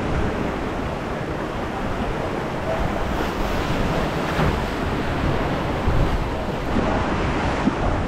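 Steady rush of churning whitewater in a river rapids ride channel, heard from aboard the raft.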